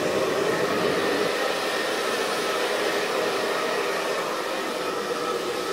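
Hand-held hair dryer running steadily: an even rush of blown air with a faint motor whine.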